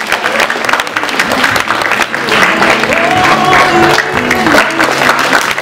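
Audience applauding, with music playing over the clapping.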